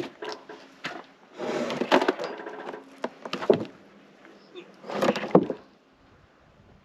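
Wood knocking and clattering in several short bursts with sharp cracks, three main clusters, the last about five seconds in.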